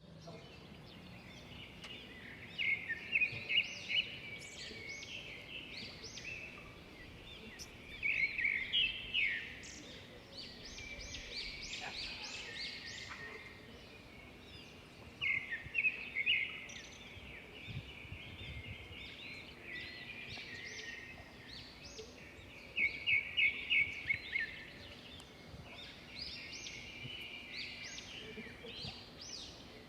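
Songbirds singing in a mixed chorus of chirps and trills, with a loud run of rapid repeated notes returning every five to eight seconds.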